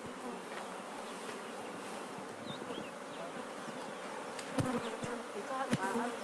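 Swarm of honey bees buzzing, a dense, steady hum, with two sharp knocks a little past the middle.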